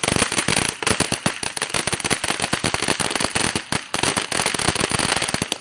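A firework going off in a rapid, continuous string of sharp cracks and pops, many to the second, stopping suddenly at the end.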